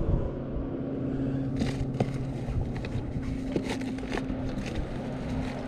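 A steady low engine hum in the background, with a few sharp clicks and rustles of handling close to the microphone.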